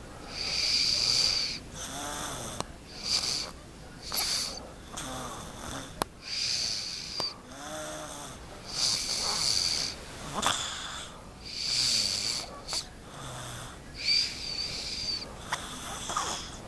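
A young girl snoring loudly in her sleep, one wheezy, whistling snore about every two seconds. There is a sharp click about six seconds in.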